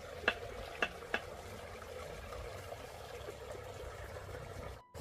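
Water splashing as blue rubber gloves are swished and dipped in a shallow concrete water channel: a few small sharp splashes in the first second and a half, then a soft, steady water sound.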